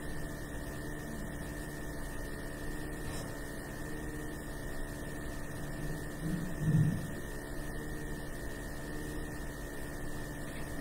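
Steady electrical hum with several fixed tones, from the sound system's audio feed. A brief faint low sound comes about six and a half seconds in.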